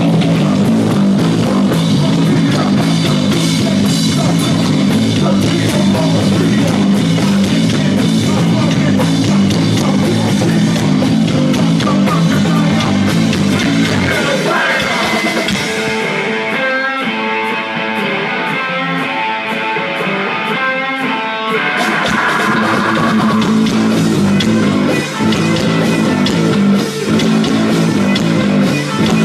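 A rock band plays live, with electric guitar, bass and drums. About halfway through, the bass and drums drop out for several seconds, leaving a repeating guitar figure on its own, and then the full band comes back in.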